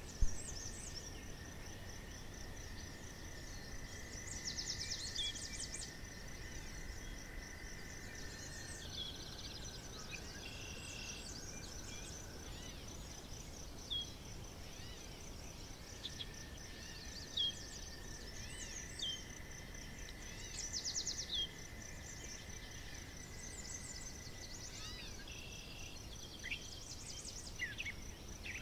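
Countryside ambience: a steady high insect trill with scattered bird chirps and a few quick trills, over a low rumble. Twice a long, steady whistle-like tone runs for several seconds.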